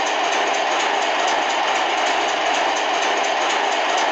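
Reely Motor Sound Simulator truck-sound module playing a simulated truck engine idling through its small speaker: a steady, loud, noisy drone without changes in pitch.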